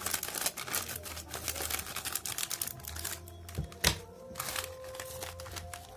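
Metallised foil snack packet crinkling and crackling as it is torn open and handled, a rapid run of small clicks with one sharper snap about four seconds in.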